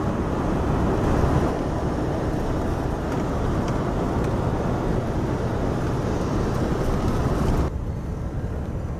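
Steady road and engine noise inside a Chevy high-top conversion van driving along a highway. About eight seconds in the hiss abruptly thins and the noise becomes a little quieter and lower.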